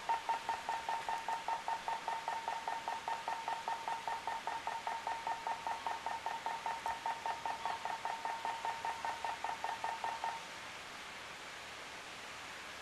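Rapid electronic beeping: a steady train of short high beeps, about five a second, that stops abruptly about ten seconds in, leaving faint hiss.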